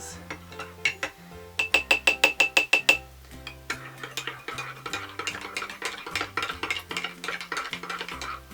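A metal spoon stirring matcha powder into a cup of hot milk, clinking rapidly against the cup's sides, about ten ringing clinks a second for over a second, then busier scraping and stirring. The powder is clumping and not dissolving well. Light background music with a bass line plays underneath.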